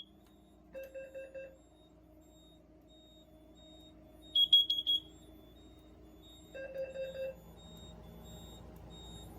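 Carbon monoxide detector alarm sounding in groups of four short beeps: a lower, buzzy group about a second in and again near seven seconds, and a louder, shrill high group around the middle. The four-beep pattern is the standard carbon monoxide alarm signal.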